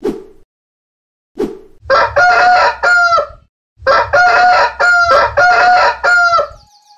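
Rooster crowing twice, the second crow longer than the first, after two short sudden sounds near the start.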